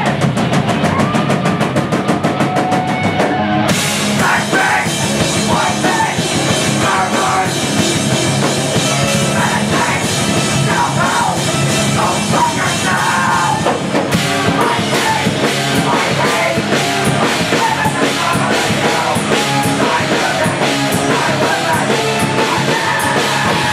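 Live rock band playing loudly: drum kit, keyboard and electric guitar. The sound fills out with cymbals about four seconds in.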